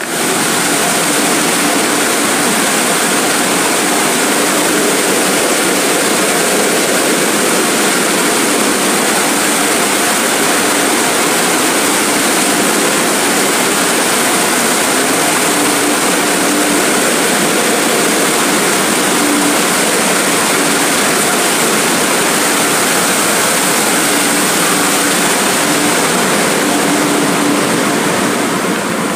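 Automatic car wash tunnel equipment running: a loud, steady rushing noise with a faint hum underneath. It comes in suddenly and eases slightly near the end.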